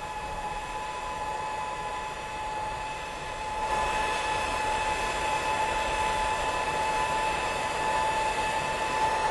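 Steady rushing hiss with a high whine, helium gas flowing into a large stratospheric balloon as it is inflated, growing louder about four seconds in.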